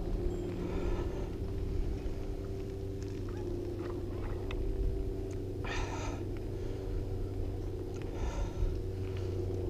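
Mountain bike rolling along pavement: a steady hum and rumble from the tyres and bike. Two brief high-pitched sounds break in, about six seconds in and again near the end.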